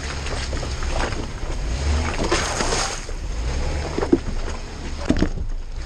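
Jeep Wrangler engine running low and steady as it crawls over a rocky trail, with a few sharp knocks from rocks under the tyres about four and five seconds in. Wind rushes on the microphone near the middle.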